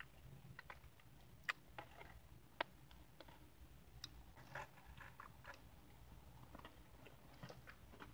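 Quiet mouth sounds of a person chewing Oreo cookies and whipped cream: soft, irregular small clicks and smacks, with two sharper clicks about one and a half and two and a half seconds in.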